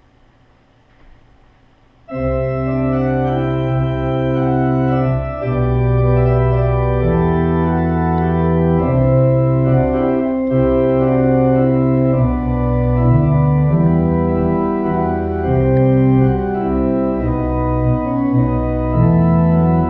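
Allen 600 Series digital church organ playing sustained full chords over deep bass notes, the chords changing every second or two. It comes in suddenly about two seconds in, after a quiet moment.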